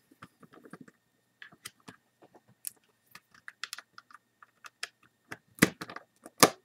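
Size 00 Phillips screwdriver turning a tiny tight screw out of the webcam's plastic housing: a run of small, irregular clicks, with two sharper clicks about a second apart near the end. The screw is being turned too fast and is starting to strip.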